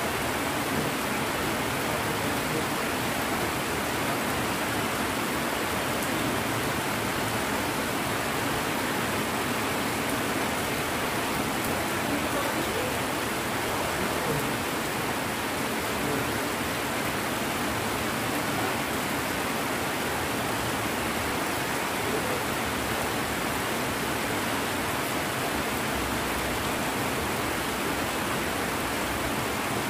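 Heavy rain pouring down steadily, an even hiss with no let-up.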